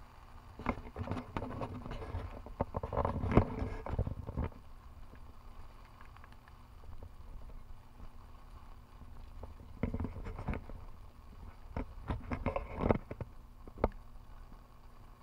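Irregular knocks and taps from footsteps and handling as the camera is carried through the storm, coming in two spells: at the start and again about ten seconds in. Between them is a steady faint hiss of wind and rain.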